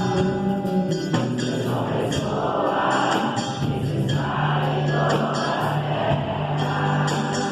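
Worship band playing a passage between sung lines: sustained bass notes, regular cymbal strokes, and full chords with choir-like voices.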